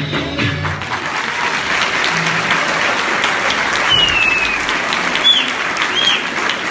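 Audience applauding as a piece of music ends about a second in, with a few short high whistles from the crowd near the end.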